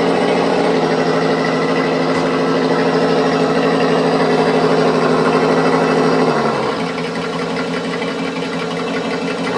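An electronic engine-sound module on an RC car playing a simulated engine through its speaker, running steadily, then dropping in pitch and level about six and a half seconds in, as if easing back toward idle.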